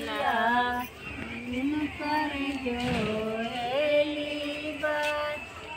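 A high voice singing a slow melody in phrases, with long held notes that bend in pitch.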